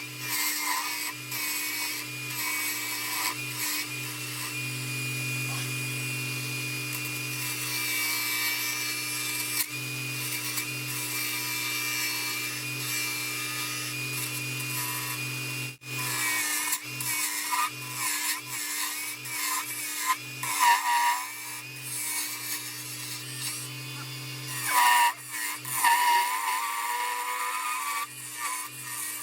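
A small electric power tool running while it cuts into a wooden ornament blank: a steady motor hum under a wavering scraping sound. It stops briefly about halfway through, and there are louder bursts of cutting near the end.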